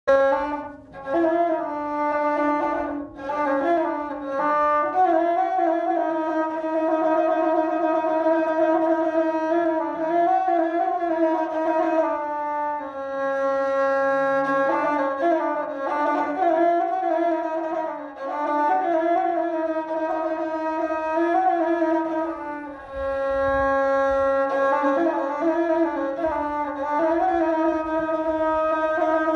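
Rababa, the Bedouin one-string bowed fiddle, playing a slow solo melody of held, sliding, ornamented notes in phrases with brief pauses between them.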